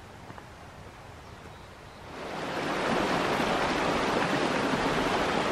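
A small mountain creek rushing and splashing over rocks, coming in loud and steady about two seconds in after quiet outdoor air.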